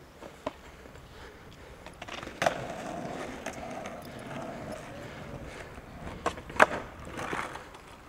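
Skateboard wheels rolling on concrete for about three seconds, with sharp clacks of the board, the loudest about two and a half seconds in and again near six and a half seconds.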